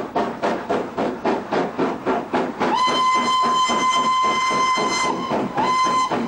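N15 King Arthur class two-cylinder 4-6-0 steam locomotive working hard with a passenger train, its exhaust beating about four times a second. Its steam whistle gives one long blast from a little under three seconds in, then a short second blast near the end.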